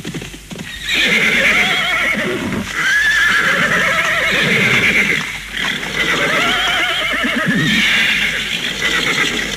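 A horse neighing: about four long, quavering whinnies in a row, starting about a second in.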